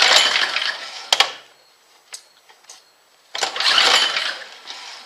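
John Deere snowblower's small engine pulled over twice on its recoil starter cord, each pull about a second long. It turns over but doesn't catch, with its carburetor mixture screw freshly readjusted.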